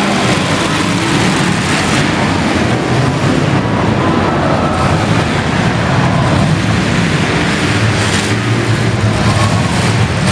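Several demolition derby cars' engines running and revving together, a loud, steady, continuous din.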